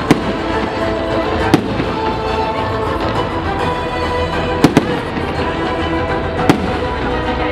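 Fireworks display firing a fan of comets: a steady dense din with sharp bangs at the start, about a second and a half in, a quick pair past the middle, and one near the end, with music playing underneath.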